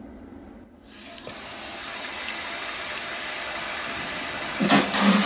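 Bidet attachment spraying water with a steady hiss. It starts about a second in and swells as its pressure knob is turned up. Near the end a loud shout of about a second rises over the spray.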